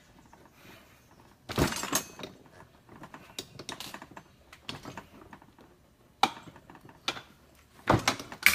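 Sharp metal taps and clinks, a few at a time with quiet between, from working the spring preload nut on a KYB motocross rear shock loose and backing it up the shock body. The loudest strikes come about one and a half seconds in and again near the end.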